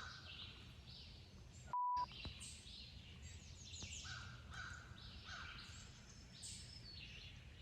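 Spring woodland birdsong: songbirds chirping, with crows cawing now and then, fairly faint. About two seconds in there is a brief, steady, pure beep, the loudest sound here.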